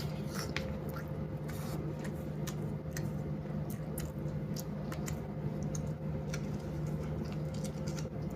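A person chewing food close to the microphone: wet mouth sounds and small irregular clicks, over a steady low electrical hum.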